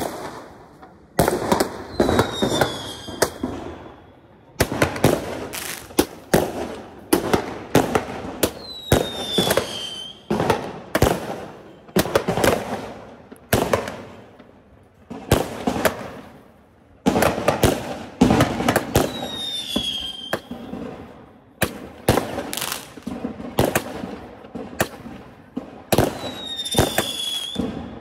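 Firework cake firing shot after shot, sharp bangs about once a second, each with a short crackling tail. Four times a shell gives a high falling whistle.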